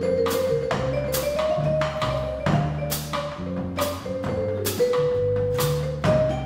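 Live small jazz combo playing: a vibraphone melody of held ringing notes over an upright double bass line, with drum-kit cymbal strokes throughout.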